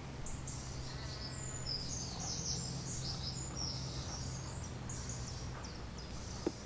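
Small songbirds chirping and twittering, with a steady low hum underneath that stops shortly before the end, and one short click near the end.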